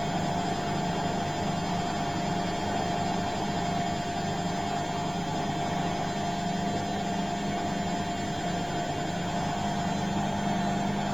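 Bosch washing machine running steadily: a constant motor hum with a thin, steady whine over it and no change through the stretch.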